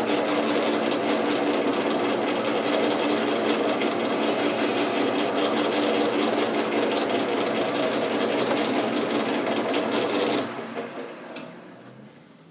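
Metal lathe running with a four-jaw chuck, its carbide-insert tool turning a metal hub: a steady machine noise with a rough cutting hiss. About ten seconds in the lathe is switched off and the sound dies away over a couple of seconds as the chuck spins down.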